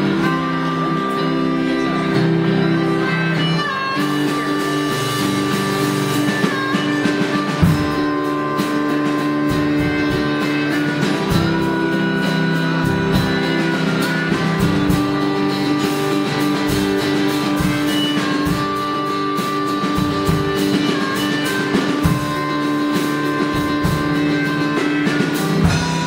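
Blues shuffle instrumental: a harmonica played into a microphone, holding and bending notes, over a strummed guitar keeping a steady shuffle rhythm.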